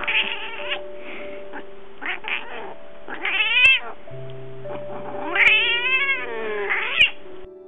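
Domestic cats meowing: a short meow about three and a half seconds in, then a longer meow that rises and falls from about five to seven seconds. Soft background music with held notes plays underneath.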